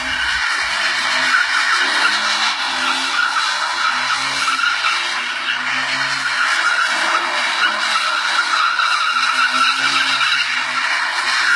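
Tofaş 131 Doğan, a rear-wheel-drive sedan, doing donuts: its rear tyres squeal steadily as they spin on the pavement, with the engine note rising and falling underneath.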